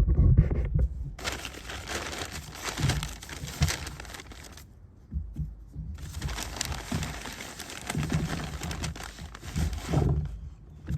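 Crinkling, rustling handling noise as freshly harvested potatoes are gathered up and moved around, in two stretches of a few seconds each with a short lull between.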